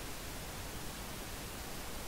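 Steady hiss of background noise from the narration microphone, with no other sound.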